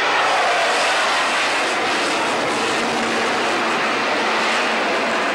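Loud, steady jet roar from the Avro Vulcan's four Rolls-Royce Olympus turbojets as the delta-wing bomber passes low and pulls up into a steep climb. A tone in the roar falls in pitch during the first second.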